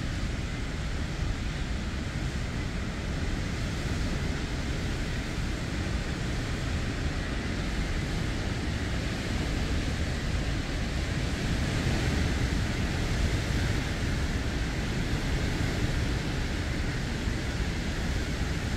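Hurricane wind and heavy rain pouring down, a steady rushing noise with a deep rumble underneath, swelling slightly about two-thirds of the way through.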